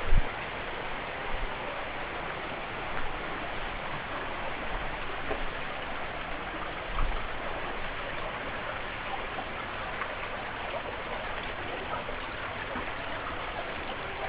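Creek water running steadily over rocks, an even rushing sound, with a short thump at the very start and a few lighter knocks.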